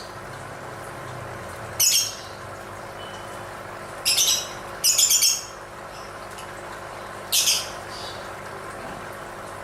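Lovebird calling in short, shrill bursts: four calls spaced a second or two apart, one of them a quick run of notes, over a steady background hiss.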